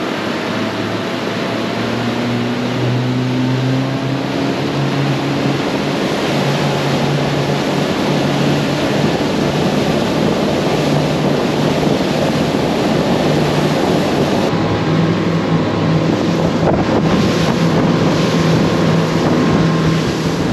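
Honda 90 four-stroke outboard motor running at speed, driving the boat on plane, over the rush of the wake and wind on the microphone. The engine note rises slightly in the first few seconds, then holds steady.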